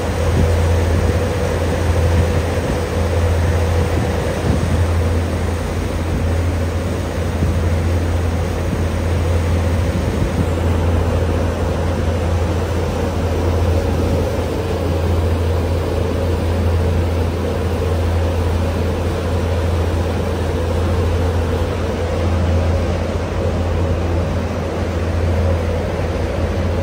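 Boat running steadily under power: a deep, even engine drone with a steady hum above it, mixed with the rushing of the churning wake and wind.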